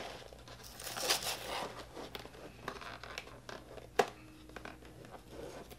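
Cardboard cereal box being pried open at its glued top flap: scratchy tearing and scraping of the paperboard, with scattered small ticks and one sharp click about four seconds in.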